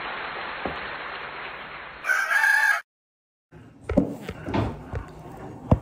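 A short rooster crow, loud and pitched, about two seconds in, after a steady hiss that fades away; then, after a moment of silence, knocks and handling noises.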